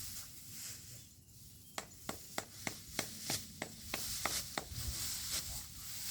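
Sickle cutting rice stalks by hand: a quick run of crisp snips, about four a second, starting about two seconds in and stopping near the five-second mark.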